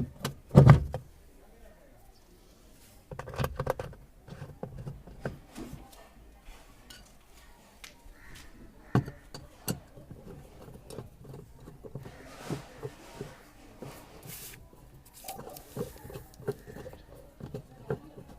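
Irregular small clicks, taps and knocks of hand tools and plastic panels being handled as a top-loading washing machine is screwed back together, with a louder knock just after the start and a brief cluster of clatter about three seconds in.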